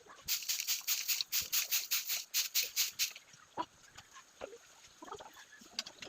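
Quick rhythmic scraping strokes, about four a second, stopping about three seconds in, then fainter scattered short sounds.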